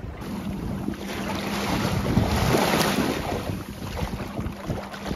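Wind buffeting the microphone over water washing and splashing along the hull of a small Scamp sailboat running downwind through choppy water. The rush swells about two seconds in.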